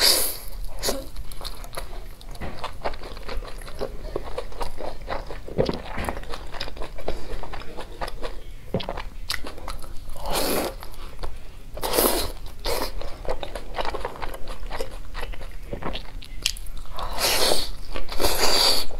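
Close-miked biting and chewing of a crisp pan-fried chive pancake, with many small crackly crunches and louder crunching bites about halfway through and near the end.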